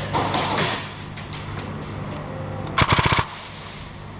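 An airsoft electric gun (AEG) firing one short full-auto burst of about seven shots in under half a second, a little under three seconds in, after a brief noisy scuffing sound at the start.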